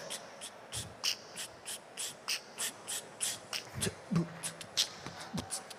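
A person beatboxing a beat: a steady rhythm of sharp hissing hi-hat sounds, about three a second, with a few low kick-drum thumps.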